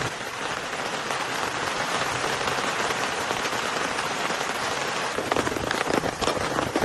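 Heavy rain pouring steadily onto a surface in a dense, even hiss, with a few sharper individual drop strikes near the end.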